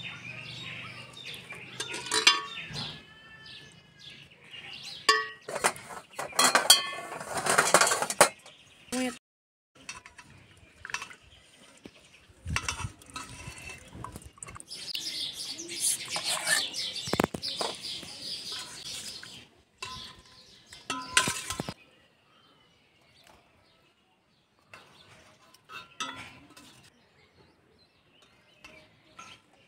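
Steel ladle clinking and knocking against steel pots and serving bowls as chicken broth and curry are ladled out: a run of sharp clinks and scrapes, growing much quieter with only scattered light clinks in the last third.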